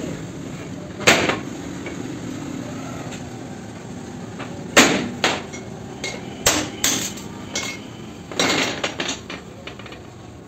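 Hammer blows and metal clanks on steel car parts while a front wheel hub and knuckle are being worked apart to replace a wheel bearing. Sharp, irregular metallic knocks: one about a second in, then a quick run of them in the second half.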